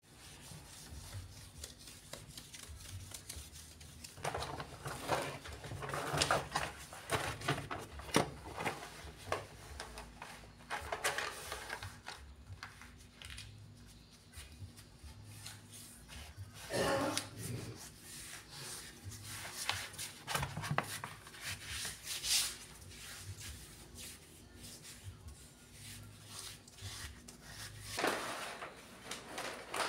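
Rustling and rubbing as a self-adhesive vinyl sheet is handled, pressed and smoothed onto a countertop by hand, with scattered light knocks.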